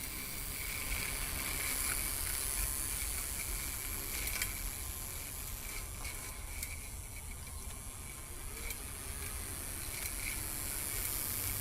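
Small electric motors and gearing of a DIY remote-control lawn mower running steadily, a whirring hum with hiss and a few faint clicks.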